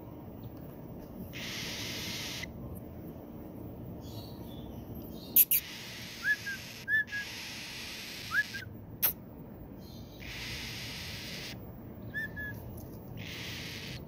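Newborn cockatiel chick giving a few short, rising peeps while being hand-fed through a feeding tube. Two sharp clicks, the loudest sounds, fall among the peeps, and there are two spells of soft hiss.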